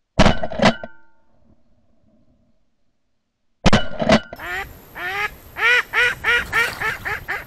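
Two shotgun shots fired in quick succession, about half a second apart, then a second pair of shots a few seconds later. Right after the second pair, a live decoy duck quacks in a fast run of about a dozen quacks.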